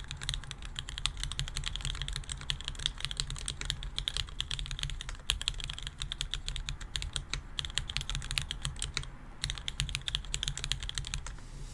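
Serratus Proto mechanical keyboard with Wyse Black switches lubed with Tribosys 3204, 60 g custom springs and a 2 mm aluminium plate, typed on steadily: a fast run of keystroke clacks, with a short pause about nine seconds in.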